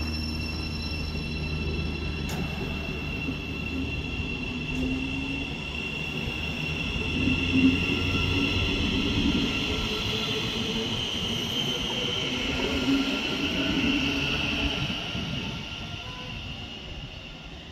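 Electric multiple unit running out along the platform, its traction motors giving a high whine that rises slightly as the train gathers speed, over the rumble of wheels on the rails. The sound fades near the end as the last carriage moves off.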